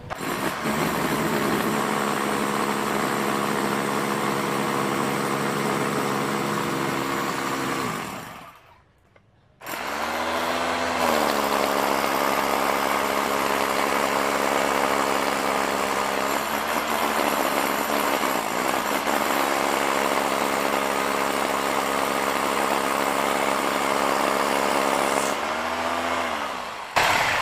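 Corded rotary hammer drill with a long masonry bit boring through a brick, its motor running steadily. It stops about eight seconds in and spins down, then restarts with a rising whine about two seconds later and runs until it winds down near the end.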